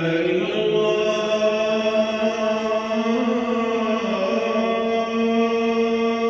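Devotional chanting laid over the video as a soundtrack: a single voice holding long notes that glide slowly from one pitch to the next, in the unaccompanied style of an Islamic nasheed or recitation.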